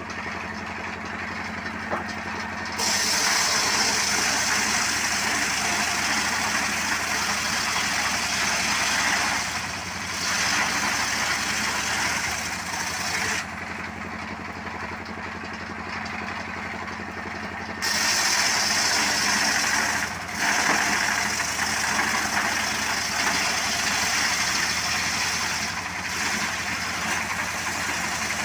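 Motorcycle engine rigged to drive a wood-cutting saw, running steadily. Its blade cuts through wood in two long spells of loud, hissing cutting noise, the first starting about three seconds in, with the engine alone in a quieter gap around the middle.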